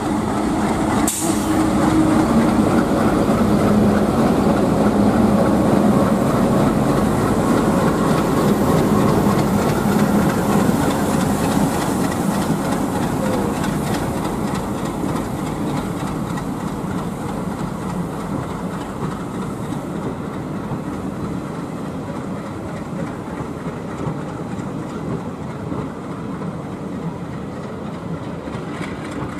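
A passenger train hauled by several diesel locomotives passes close by. The engines run loud and the wheels clatter over the rails, and a sharp click comes about a second in. The sound is loudest in the first third and then slowly eases off as the coaches roll past.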